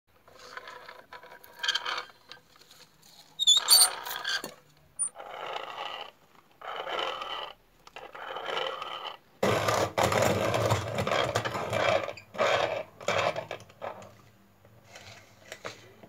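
Old hand-cranked wooden box coffee mill being turned, scraping in short bursts of about a second each, with a few high squeaks about four seconds in. From about nine and a half seconds comes a louder, denser stretch of scraping over a low hum.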